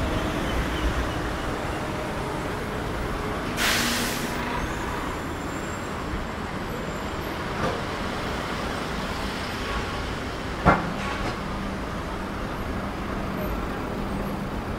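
Street traffic noise from passing vehicles. About three and a half seconds in there is a short, loud hiss, and near eleven seconds a sharp knock, followed by a steady low hum.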